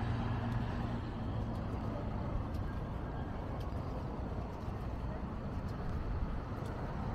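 Steady road traffic noise: an even low rumble of passing vehicles.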